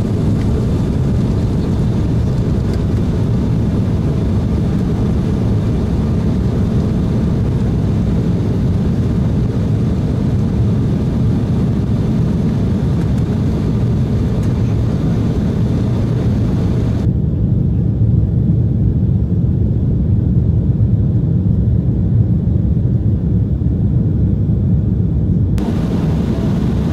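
Cabin noise of an Embraer ERJ-190 airliner climbing out just after lift-off: its two turbofan engines at takeoff thrust and the rushing airflow make a steady, loud low rumble. Past the middle, for about eight seconds, the hiss above the rumble suddenly drops away and the sound turns duller, then comes back.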